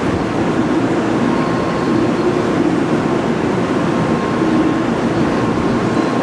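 N700-series Shinkansen standing at the platform, its onboard equipment running in a steady, even hum with a faint high tone above it.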